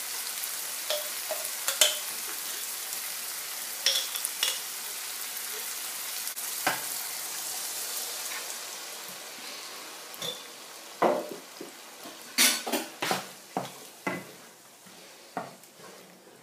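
Peppers, onion and pesto sizzling in a non-stick frying pan, with knocks and scrapes of a wooden spoon and the pesto jar against the pan. About halfway through the sizzle dies away as liquid is poured into the pan, and a run of spoon knocks follows as the sauce is stirred.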